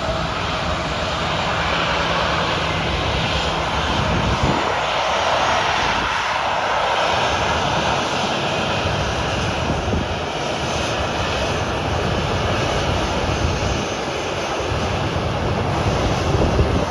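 Jet airliner's engines, a broad steady rush that swells a few seconds in, over gusty wind buffeting the microphone.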